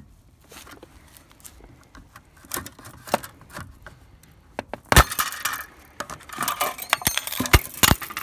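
Tin snips cutting the steel banding strap on a bundle of metal roofing panels: sharp metallic clicks and clinks as the strap is snipped and comes loose against the sheets, loudest about five seconds in and again near the end.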